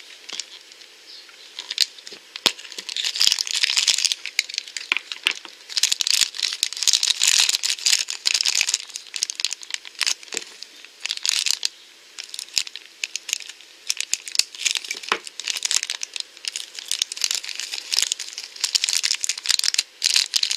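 Crinkly yellow Grossery Gang Yuck Bar blind-bag wrapper being torn open and unwrapped by hand, crackling in irregular bursts.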